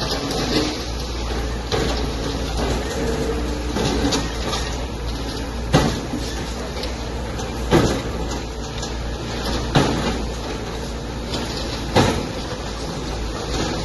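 Hydraulic excavators demolishing a concrete-framed building: a steady low rumble, with a sharp knock or crash about every two seconds as the buckets strike concrete and timber.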